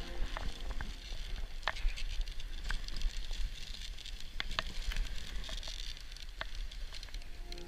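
Dog sled moving over snow: a steady scraping hiss from the runners with a low rumble underneath and scattered sharp clicks and creaks, about one or two a second.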